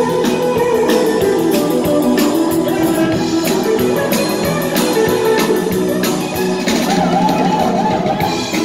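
Live rock band playing: guitar over a steady drum beat.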